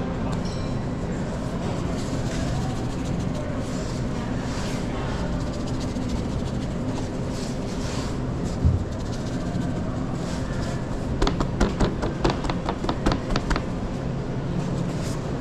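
Steady low hum of kitchen machinery, with a single thump about eight and a half seconds in. A quick run of about ten sharp clicks or taps follows over a couple of seconds near the end.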